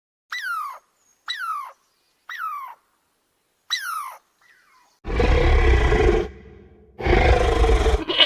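Animal calls: four short calls, each falling in pitch, then two loud, rough roars of about a second each.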